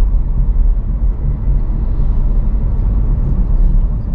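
Steady low rumble of tyre and road noise inside the cabin of a moving VinFast VF5 electric car.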